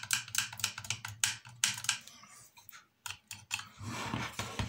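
Quick, irregular small clicks and taps of a screwdriver and small nuts being fitted onto bolts, dense for the first two seconds and sparser after, over a faint steady low hum.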